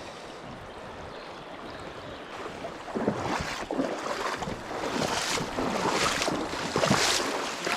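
River water running over the stream bed, with louder uneven splashing and gusts from about three seconds in.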